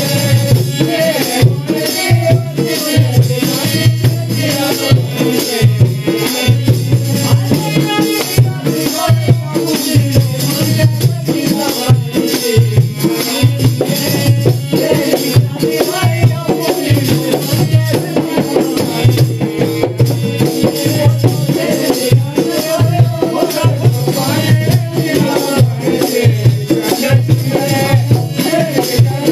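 Live Pahari folk music for nati dancing: a two-headed hand drum beating a steady rhythm with a wavering melody over it.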